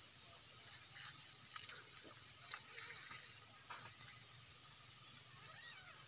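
Steady high-pitched insect drone, with a scatter of short rustles and clicks for a few seconds in the middle.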